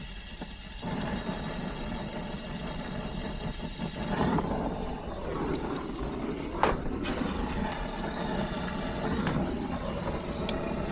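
Acetylene brazing torch flame burning steadily at a low setting while copper refrigerant line joints on a heat pump reversing valve are brazed. There is one sharp click about two-thirds of the way through.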